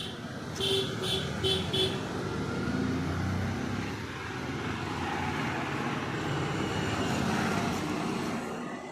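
Road traffic: a motor vehicle running past, with four short beeps about a second in.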